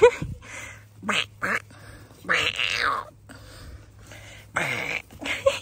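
Dalmatian puppies yapping and barking in rough play: short, sharp yaps near the start and about a second in, then longer, harsher barks about halfway through and near the end.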